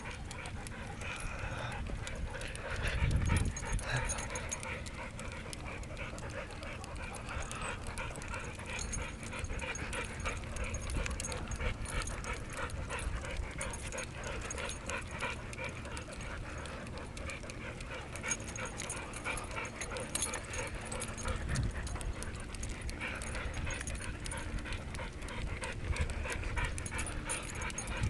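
Dog panting steadily, with two brief low rumbles, about three seconds in and again about two-thirds of the way through.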